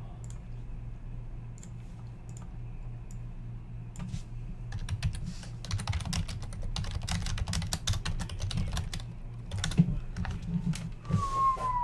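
Typing on a computer keyboard: a few scattered keystrokes, then a quick run of rapid key clicks lasting several seconds. A short whistle, dipping then rising, comes in near the end.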